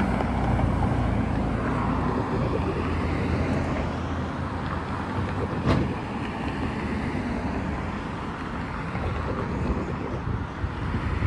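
Road traffic: a pickup truck drives past, its engine and tyre noise easing over the first few seconds into steady traffic rumble. A single sharp click about six seconds in.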